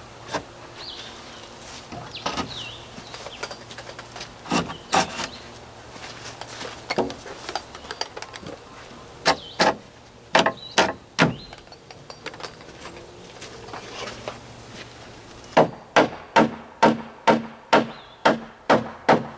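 Wooden joists knocking as they are handled and set into their hangers, with scattered knocks. Near the end a hammer drives nails with a quick run of about a dozen blows, roughly three a second.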